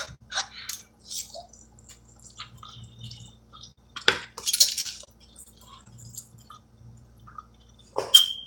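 A person slurping instant noodles off a fork, with a loud wet slurp about four seconds in and a shorter one near the end, and small wet mouth clicks between.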